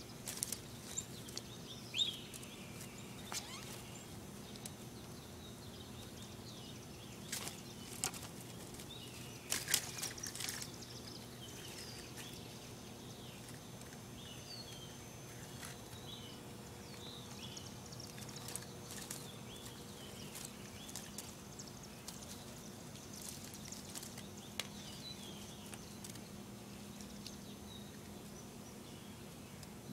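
Outdoor ambience of small birds chirping over a steady low hum, with short crackles and rustles of dry twigs as kittens scramble and play-fight in a brush pile. The rustles are loudest about two, eight and ten seconds in.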